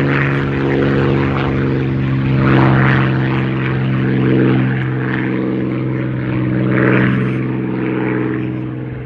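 Supermarine Spitfire's V12 piston engine running steadily in a low fly-past. The sound swells and fades several times, and the pitch slides down as the aircraft passes.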